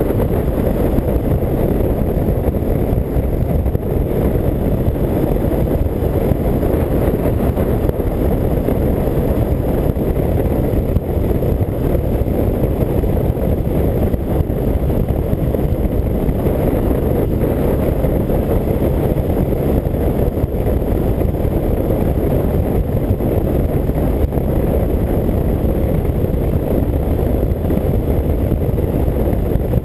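1984 BMW R100RS's air-cooled flat-twin engine running steadily at highway cruising speed, mixed with wind rushing over the microphone.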